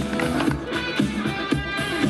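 Background music with a steady beat and guitar-like notes.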